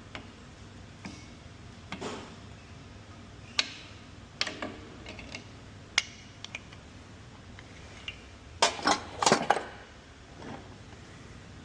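Metal engine parts and hand tools clinking and clanking during an LS engine teardown: single knocks every second or so, then a quick run of five or six sharper clanks about two-thirds of the way through.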